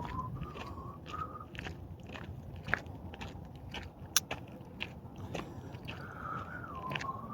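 A whistled call sliding down in pitch and ending in a couple of short notes, heard at the start and again near the end, over irregular crunching and scraping with a few sharp clicks.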